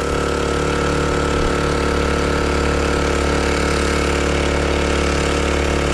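Small 4-horsepower Chinese outboard motor running at a steady speed, pushing the canoe under load. The owner finds it bogging down and sputtering under load and thinks the carburettor may need adjusting.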